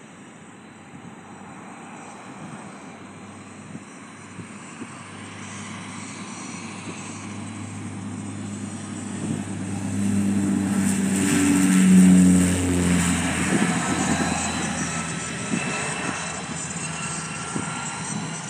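Jet airliner's engines as it passes along the runway: a roar that swells slowly to its loudest about twelve seconds in, with a few tones shifting in pitch as it goes by, then fades gradually.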